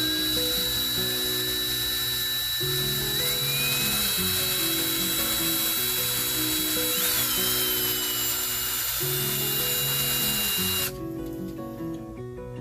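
DeWalt drill with a 9/64 bit running, drilling out the rivet post of a die-cast toy car to pop off its rivet ring. Its motor whine steps up in pitch a couple of times and stops suddenly about eleven seconds in. Background music plays underneath.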